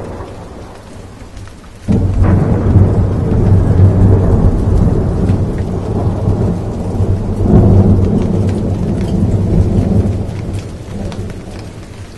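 Rain falling, with a clap of thunder about two seconds in that rolls on as a loud low rumble, swells again midway and fades near the end.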